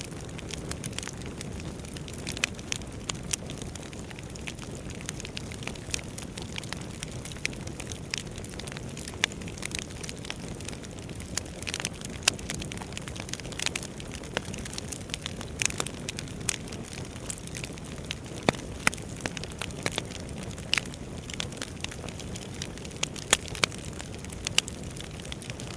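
Wood fire crackling: irregular sharp pops and snaps of burning logs over a steady low rumble of the flames.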